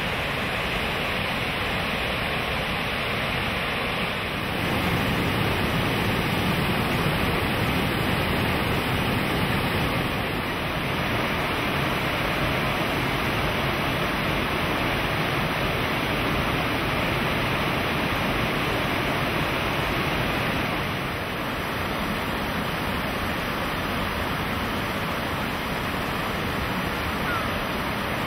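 Rushing water of shallow river rapids running over rocks: a steady, even rush that steps up and down in level a few times.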